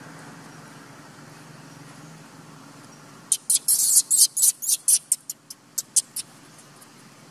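Baby macaque squealing in a quick run of about a dozen short, high-pitched squeaks over some three seconds while its mother holds and handles it, after a faint fading hum of passing traffic.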